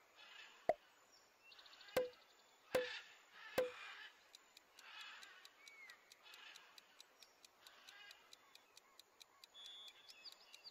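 Quiz-game sound effects: four sharp pops in the first four seconds, then a countdown timer ticking steadily and quietly, with faint soft swells of hiss between the ticks.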